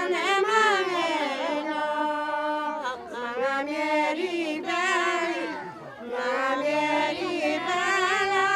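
A group of Garhwali village women singing a traditional mangal geet, the auspicious folk song of Garhwal, together without instruments. The long, drawn-out phrases waver in pitch and break briefly about three seconds in and again about six seconds in.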